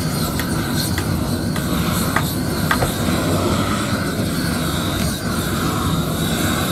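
Gas roofing torch burning steadily as it melts the underside of a bitumen waterproofing membrane being torched down onto the slab, with a few faint clicks in the first three seconds.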